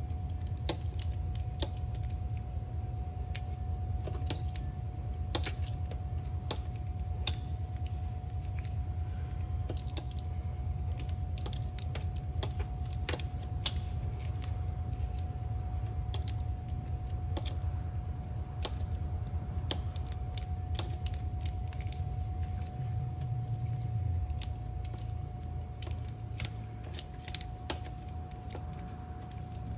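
Hand tools and metal parts clicking and tapping at irregular intervals during work on a car's driveshaft carrier bearing support, over a steady low hum and a faint steady high tone.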